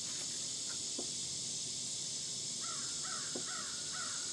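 Melted butter sizzling steadily on a hot Blackstone flat-top griddle. About two and a half seconds in, a bird calls four times in quick succession.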